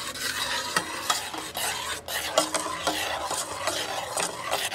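A small metal whisk stirs espresso and powdered sugar in a stainless steel saucepan, scraping and ticking against the pot over and over, while the sugar dissolves over medium heat.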